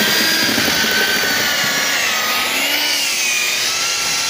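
Hand-held electric drill mixing plaster in a bucket: a steady motor whine that dips and rises slightly in pitch as the load and speed shift.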